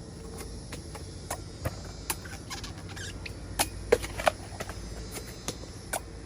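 Irregular crisp snaps and cracks of bamboo shoots being cut, a few a second, with the loudest cluster a little past the middle.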